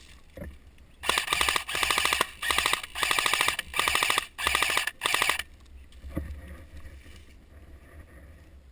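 M249-style airsoft electric gun firing six short full-auto bursts in quick succession, a rapid mechanical rattle of the gearbox cycling, from about a second in until about five and a half seconds in.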